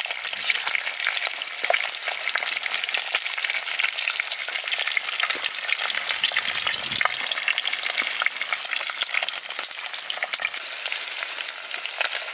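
Garlic sizzling in olive oil in a pan, a steady dense crackle with scattered sharper pops.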